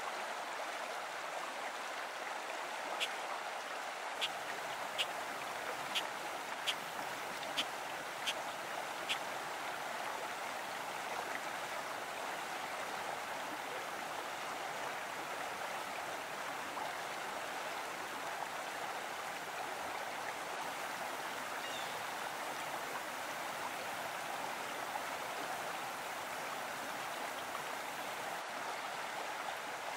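Steady rushing of a small mountain stream running over rocks. A few seconds in comes a quick series of about eight sharp ticks.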